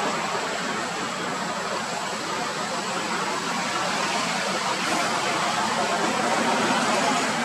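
Steady rushing background noise with no distinct calls, knocks or other events.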